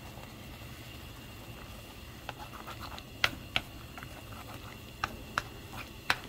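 Thick red bean broth with noodles simmering in a pan, bubbles bursting through the thick surface in a handful of sharp, irregular pops.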